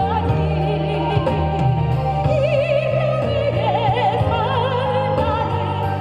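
A singer holding long notes with wide vibrato over a band accompaniment with a steady bass line.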